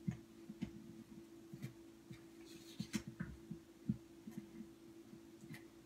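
Faint, irregular soft taps and light clicks of a Stampin' Seal tape runner being rolled along a small piece of paper on a craft mat, over a steady low hum.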